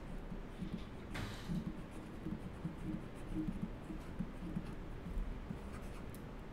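Faint, irregular scratching and tapping of a stylus on a pen tablet as a word is handwritten.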